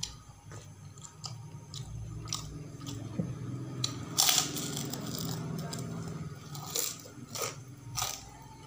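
Close-up eating sounds of a person biting into a crispy kerupuk cracker: a loud crunch about four seconds in, with more sharp crunches and wet chewing clicks around it.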